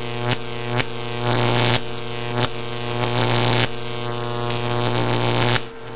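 A steady electrical buzz with hum and hiss, broken by abrupt clicks every half second to a second or so, with a brief dip near the end.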